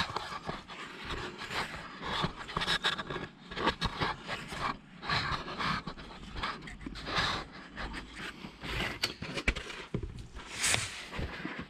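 Irregular scraping and knocking as a plastic oil drain bowl is shuffled across a garage floor into place under a motorcycle's engine.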